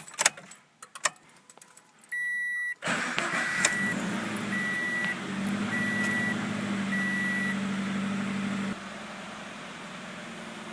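Key clicks, then a warning chime, then the Scion FR-S's 2.0-litre flat-four, fitted with an Injen cold air intake, starts about three seconds in and idles, with four short warning beeps over the first seconds of running. About nine seconds in the sound drops suddenly to a quieter, steady idle.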